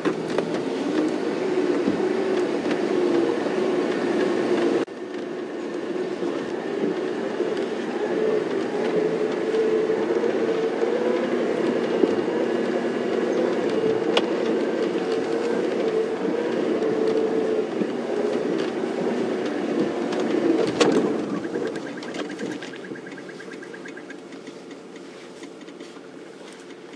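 Safari game-drive vehicle's engine running steadily as it moves, a loud, even hum for about twenty seconds that then dies away over the last few seconds.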